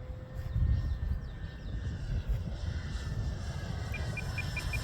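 Electric E-flite Draco RC plane's motor and propeller droning faintly and steadily in flight, under a low rumble of wind on the microphone. Near the end comes a quick run of about seven short high beeps.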